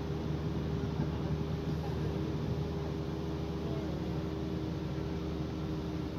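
Vehicle driving along an unpaved gravel road: a steady engine drone with constant road noise.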